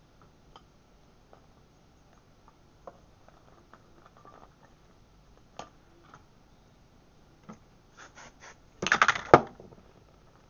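Faint taps and clicks of handling, then three short scratchy strokes and a loud, crackly rustling scrape about nine seconds in, as a section of hair is teased and handled close to the microphone.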